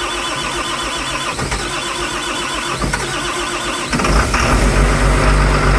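Caterpillar C6.4 ACERT diesel cranking on its starter, then catching about four seconds in and running. The cranking is pushing the last air out of the fuel system after the new priming pump was fitted.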